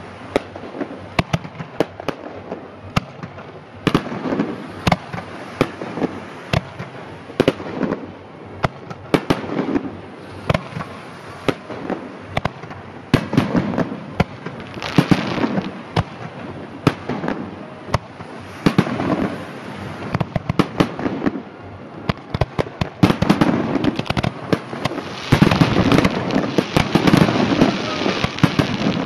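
Aerial firework shells launching and bursting overhead: a steady run of sharp bangs over continuous crackling, growing densest and loudest in the last few seconds.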